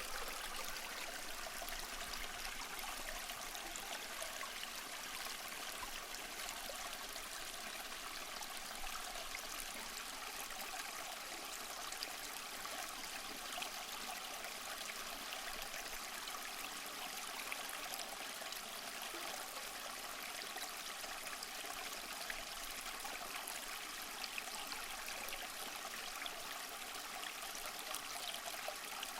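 A small stream flowing steadily, with a constant light burble and trickle of water over stones.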